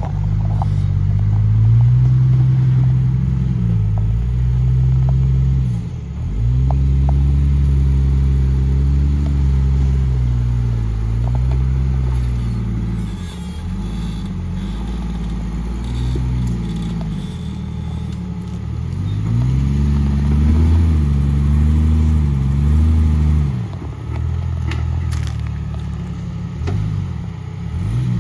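Lifted off-road Jeep's engine working under load while rock crawling, its revs rising and falling again and again as it climbs over rock ledges, with a few light clicks.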